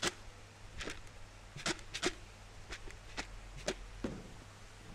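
Medicine-coated koi feed pellets being tossed and shaken by hand in a plastic bucket. They rattle in short, irregular bursts, about seven in all.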